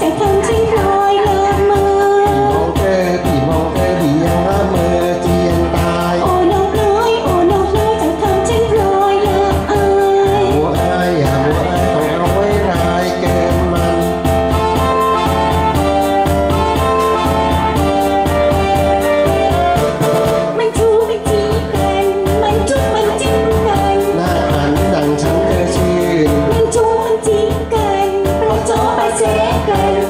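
Karaoke performance of a Thai song: a woman singing through a handheld microphone over a backing track with a steady beat. Around the middle the voice gives way to an instrumental passage.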